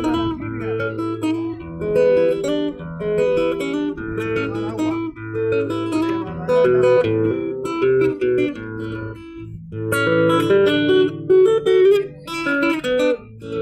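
Solo acoustic guitar playing the instrumental interlude of a gato, the Argentine folk dance: a plucked melody over repeated bass notes, with brief pauses twice between phrases.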